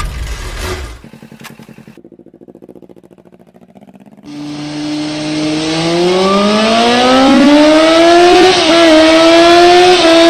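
Motorcycle engine: a quiet, fast-pulsing idle, then from about four seconds in a loud rev whose pitch climbs steadily for a few seconds, wavers and is held high. A loud low boom fades out in the first second.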